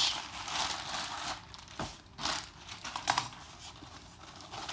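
A shipping package being opened by hand: irregular rustling and crinkling of the packaging, with short sharp clicks.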